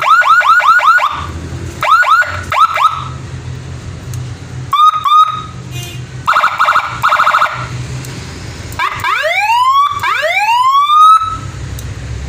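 Electronic 12-tone siren module sounding through its horn speaker, switching between tones in short bursts: rapid rising yelps, a fast buzzing warble, then two long rising wails near the end. A low hum is heard between bursts.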